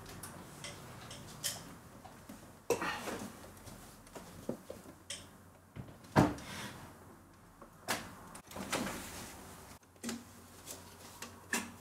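SGI Octane workstation being handled while its plastic outer shell comes off to bare the metal chassis: a series of separate clunks and knocks of plastic and sheet metal, with some scraping between them.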